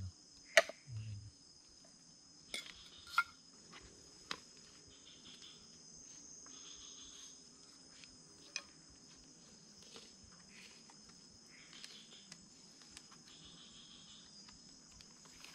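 Steady high-pitched chorus of night insects in tropical forest, with a handful of sharp clinks and knocks of metal pots and utensils being handled.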